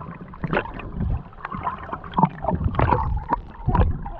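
Muffled underwater water noise picked up by a submerged action camera: irregular sloshing and gurgling with many short knocks as swimmers move close by.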